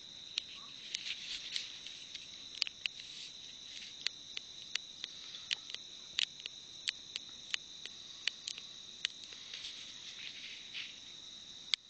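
Steady, high-pitched drone of insects calling in the forest, with irregular sharp clicks, about one or two a second, standing out above it.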